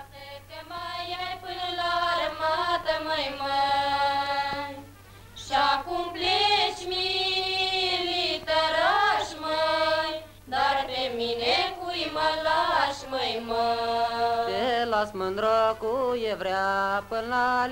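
Women's voices singing a slow folk song together in three long phrases of held, wavering notes, with short breaths between them. The last phrase sits lower in pitch.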